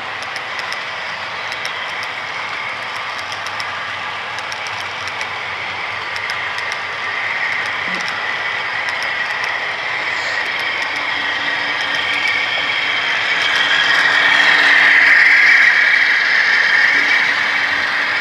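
Model freight train rolling past on the layout track: a steady running rattle of small wheels and cars with light clicking. It grows louder through the second half and is loudest a few seconds before the end.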